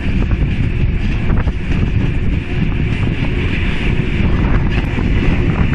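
Steady rumble of a moving steam museum train coach heard from its open window, with heavy wind buffeting the microphone and a few light clicks.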